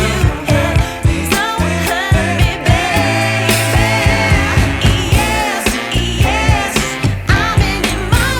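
Pop song with a sung vocal over a steady drum beat and bass.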